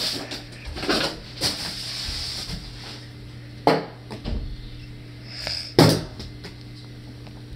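Several sharp knocks and thuds, the two loudest about halfway through and near the end, over a steady low hum.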